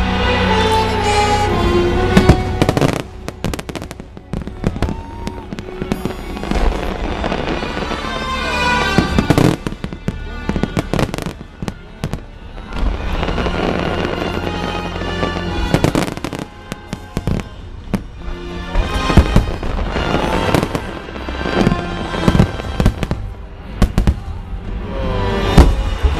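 Fireworks bursting in quick succession, many sharp bangs and crackles, over orchestral show music played on loudspeakers.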